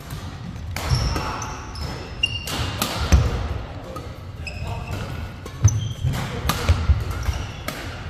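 Badminton doubles rally on a wooden indoor court: sharp racket hits on the shuttlecock, shoes squeaking briefly on the floor, and heavy footfalls thumping as the players lunge and shuffle, loudest about three seconds in and again near six to seven seconds.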